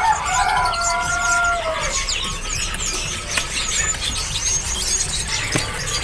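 A rooster crows once, a held call of about two seconds, over the steady chirping and twittering of many caged songbirds.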